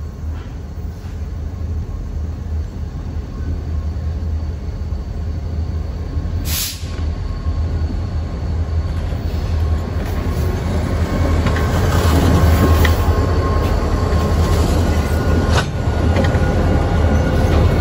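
Diesel freight locomotives approach and roll past across a wooden trestle bridge, their engine rumble growing steadily louder as they come close. Thin high wheel squeal comes in during the second half. There are two sharp cracks, one about six and a half seconds in and another near the end.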